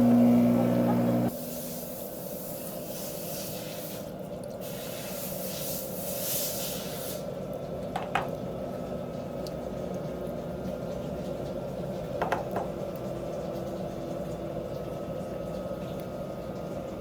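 A loud steady hum that cuts off about a second in, then a hiss like a spray or air jet for several seconds, then a steady low hum with two sharp clicks.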